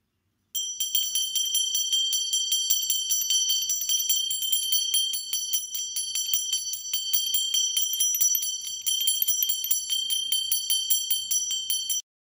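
A small, high-pitched bell rung rapidly and continuously, about five strikes a second, starting suddenly and cutting off abruptly near the end.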